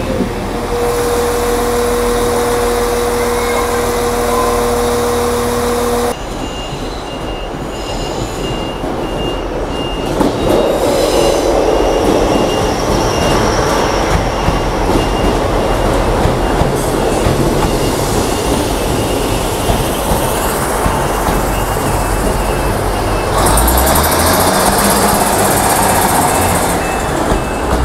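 Passenger trains in a station. A steady two-note hum cuts off abruptly about six seconds in, followed by a running rumble of train noise with a faint high beep repeating at a steady pace.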